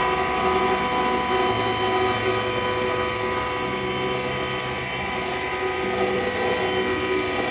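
A 7.5 HP impact pulverizer, driven by an electric motor through a V-belt, running steadily at speed with a high whine over a rushing hiss. It is running empty, before any grain is fed in.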